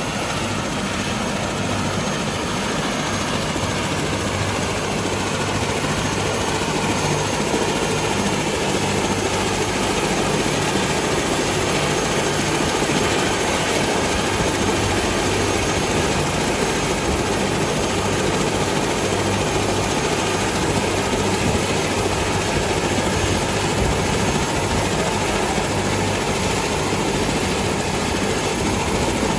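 Helicopter running steadily, a continuous rotor and engine drone.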